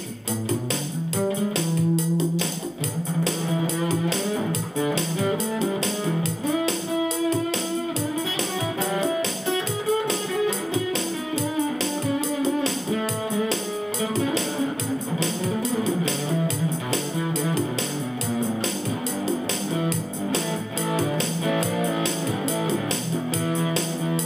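Instrumental guitar music: an acoustic guitar played through a Bonsai overdrive pedal into a small Cube-10 practice amp, set clean, over a steady beat.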